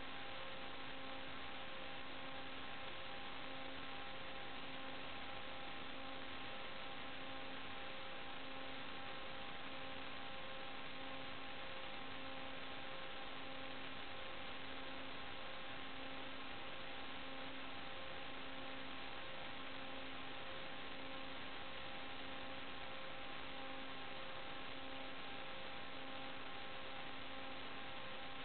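Steady electronic hiss and hum with several faint fixed tones, the lowest pulsing on and off about every second and a half. This is static on the audio channel of an analog FPV video link recording, not the drone's motors.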